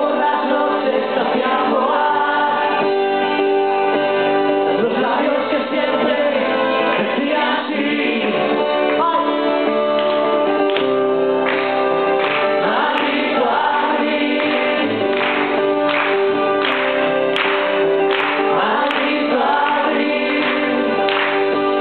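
Live band playing a slow song with sung vocals, the singing sounding like many voices together.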